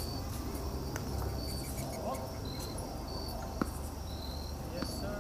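Crickets chirping, short high chirps repeating about once or twice a second over a low outdoor rumble. One sharp knock stands out about three and a half seconds in.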